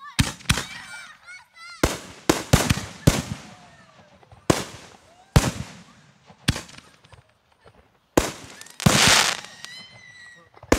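Double Play 6-inch double-break banger canister shells fired from a mortar tube and bursting overhead: a string of about ten sharp, very loud bangs, each trailing off in an echo.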